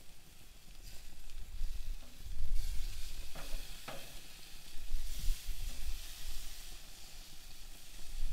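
Stuffed chicken breast sizzling on a hot grill grate, with a couple of short crackles about three and a half seconds in. Wind rumbles low on the microphone.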